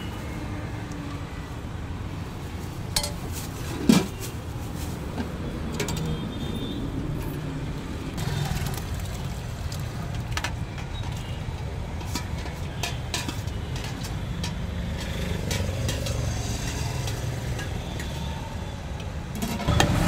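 Steady traffic rumble from the road, with scattered light clinks of a steel ladle against steel serving pots and a sharper knock about four seconds in.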